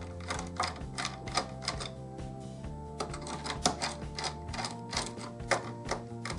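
Irregular sharp clicks and taps, a few a second, of a screwdriver working the terminal screws of modular circuit breakers to loosen them, over steady background music with held chords.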